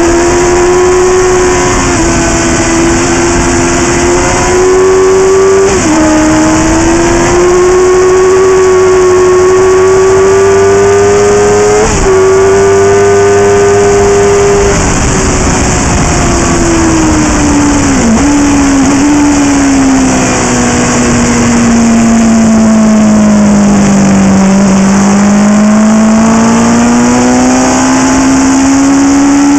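Motorcycle engine at high revs heard from onboard the bike, on a track lap. The pitch climbs with quick gear-change dips about six and twelve seconds in, then falls as the bike slows, with a downshift blip near eighteen seconds, and climbs again near the end as it accelerates out of the corner. Steady wind rush throughout.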